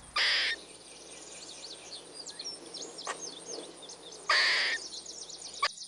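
Squirrel calling: two short, harsh, noisy calls about four seconds apart, with small birds chirping faintly in the background.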